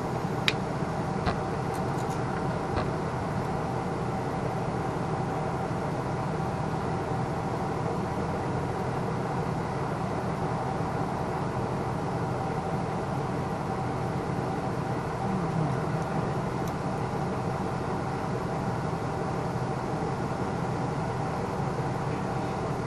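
Steady mechanical drone with a constant hum, and a few light clicks in the first three seconds.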